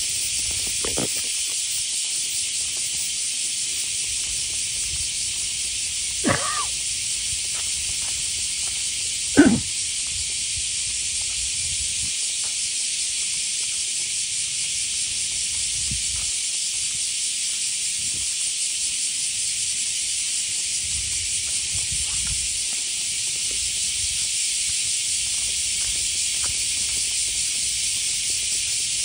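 A steady high-pitched hiss of outdoor background noise, with two short knocks about six and nine and a half seconds in, the second louder.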